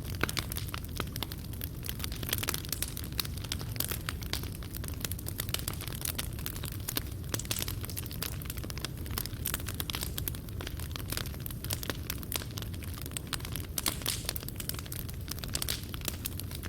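Wood fire burning in a fireplace, with dense continuous crackling and popping of the burning coals over a low rumble.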